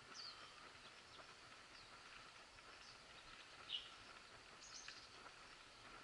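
A few faint, short bird chirps over quiet outdoor background noise, the clearest one about two thirds of the way in.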